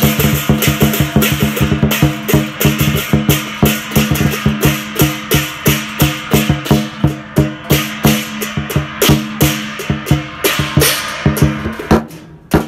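Chinese lion dance drumming: a drum beaten fast with sharp clashing percussion strikes several times a second over a steady low ring. It fades down about a second before the end.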